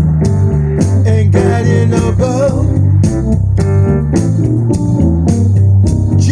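Blues music led by guitar, with bass and a steady beat, the guitar's notes bending in pitch.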